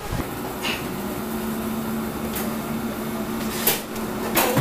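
A steady low machine hum of indoor equipment, with a few light clicks and knocks.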